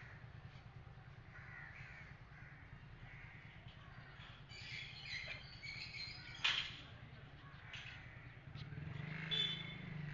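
Crows cawing faintly, with one sharp knock about six and a half seconds in.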